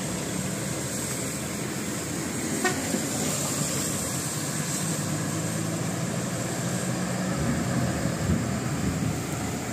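Steady running noise of a vehicle with a low engine hum, and one short toot about two and a half seconds in.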